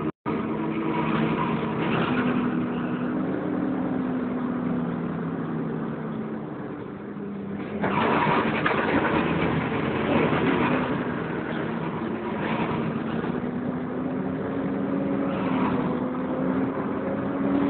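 Volvo B10BLE bus engine and cooling fan running on the move, heard from inside the Wright Renown; the engine pitch rises and falls. A louder, rougher noise comes in suddenly about 8 seconds in and stays.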